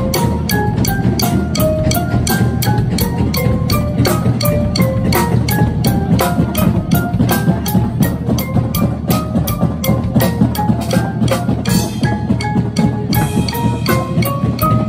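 Front ensemble of Yamaha marimbas and vibraphones playing fast stepwise mallet runs over a steady click about four times a second, with a steady low rumble underneath.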